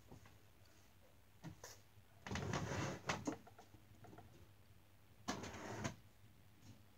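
Someone rummaging through clothes: a few short bursts of rustling and scraping, the longest about half a second, one in the middle and another near the end.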